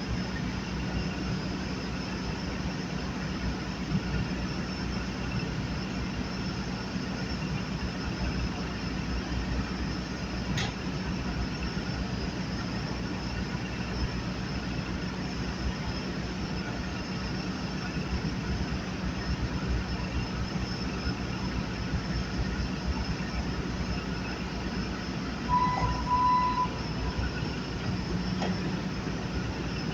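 Skid steer engine running steadily with a low drone. A single short high-pitched beep sounds about 26 seconds in.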